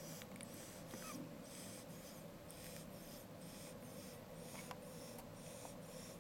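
A newborn baby's faint breathing, soft and repeated, over a steady low hum.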